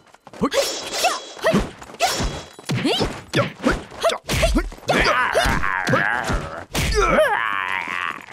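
Martial-arts fight sound effects: a rapid run of punch and kick impacts mixed with fighters' short grunts and yells, with two heavy low thuds about four and a half and seven seconds in. A wavering, drawn-out effect sound runs under the last three seconds.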